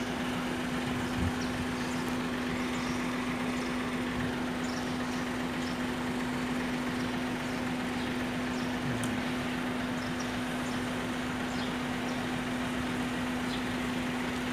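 Heavy diesel truck idling: a steady hum with a constant droning tone that does not change.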